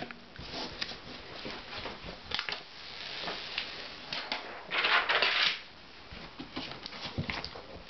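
Hands handling a closed laptop on a desk: scattered light clicks and taps on its case, with a brief rustle about five seconds in.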